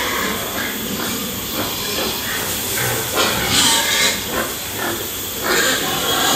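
Pigs grunting in a crowded pen over a steady background hiss, with louder bursts about three and a half and five and a half seconds in.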